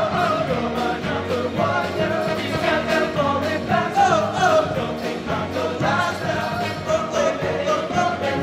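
A show choir singing in full, many voices together over an upbeat accompaniment with a steady beat.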